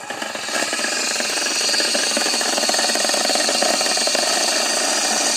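A 50-watt DC solar mixer grinder, powered directly from a solar panel, is switched on. Its motor and blades speed up over about the first second, then whirr steadily at full speed.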